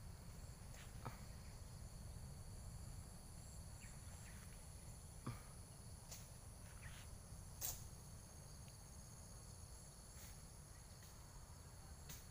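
Faint, steady, high-pitched insect chorus in several held tones, over a low rumble, with a couple of small clicks about five and seven and a half seconds in.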